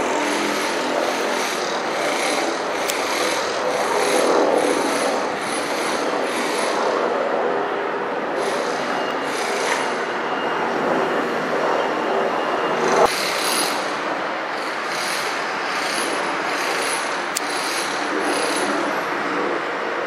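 UH-60 Black Hawk helicopter flying past at a distance: a steady rotor and turbine rumble. A single sharp click stands out about 13 seconds in.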